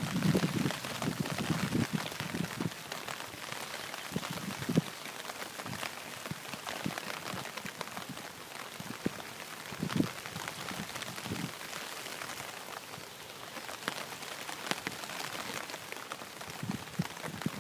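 Steady rain falling: a dense patter with many scattered sharper drop ticks. Low rumbling bursts, like buffeting on the microphone, come in the first three seconds.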